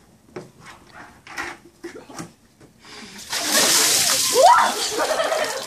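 A bucket of ice water is dumped over two people, a sudden loud splashing rush of water onto them and the wooden porch steps starting about three seconds in, after a few faint knocks. A short rising cry comes from one of them partway through the splash.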